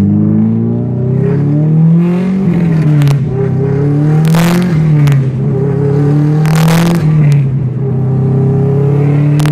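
Subaru Impreza WRX STI's turbocharged flat-four with a new aftermarket exhaust, heard from inside the cabin during a hard acceleration pull. The revs climb and drop back at each upshift, three times, with a short hissing rush at two of the gear changes.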